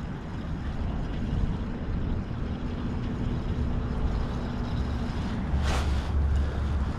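Strong wind buffeting the microphone, a steady low rumble, with a short hissing swish about six seconds in.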